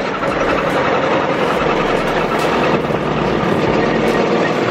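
Small vehicle engine running steadily while under way, with wind noise over the microphone in the open vehicle.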